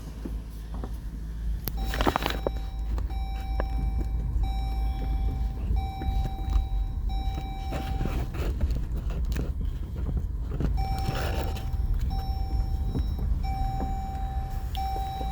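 Car running with a low rumble, while an electronic warning chime sounds a steady tone in pulses about a second long with short breaks. The chime stops for a couple of seconds midway, then starts again. There are two brief swishes of noise, one near the start of each run of chimes.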